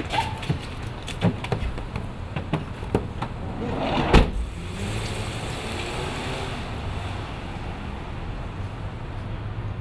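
A few knocks and scuffles as someone is pushed into a minivan, then the van's sliding door runs shut with a loud slam about four seconds in. After that the van pulls away, its engine and tyre noise steady.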